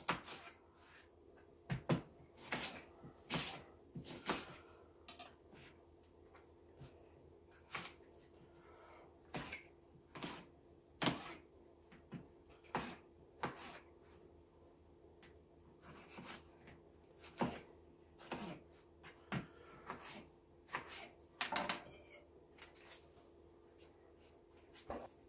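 A kitchen knife cutting onion and tomato into wedges on a plastic cutting board: irregular sharp knocks of the blade striking the board, roughly one a second, over a faint steady hum.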